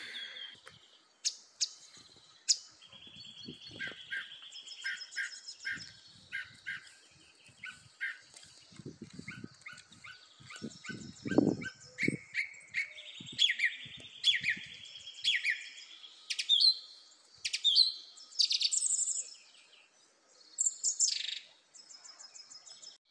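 Several songbirds singing and calling in the trees: short chirps, rapid high trills and runs of quick repeated notes, overlapping and busiest in the second half. A few soft low thumps come in the first half.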